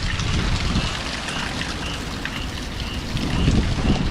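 Hurricane wind and heavy rain, a steady rushing noise, with gusts buffeting the microphone as a low, fluctuating rumble.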